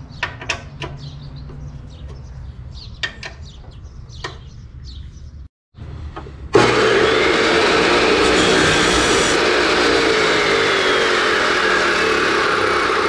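A few sharp metal clicks as the chop saw's vise is tightened on the pipe. About six and a half seconds in, the Harbor Freight Hercules abrasive chop saw switches on abruptly and its motor and cut-off wheel run steadily at full speed, spinning free above the pipe before the cut.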